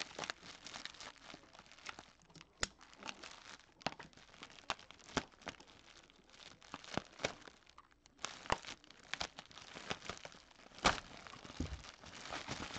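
Plastic bubble wrap crinkling and crackling in irregular bursts as it is handled and pulled off an autographed football in its display case. There is a short lull about two-thirds of the way through, then denser, louder crinkling near the end.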